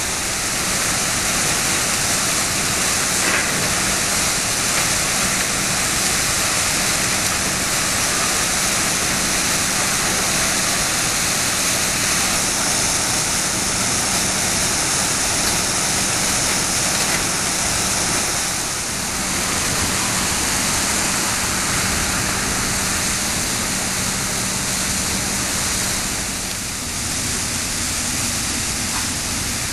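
Dredger Sospan Dau pumping a jet of sand-and-water slurry through the air into the basin as reclamation fill: a loud, steady rushing and splashing of water, with a steady low hum underneath that fades near the end.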